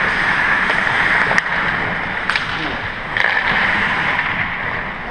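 Ice rink ambience during an ice hockey game: a steady rushing noise with three sharp clicks about a second apart.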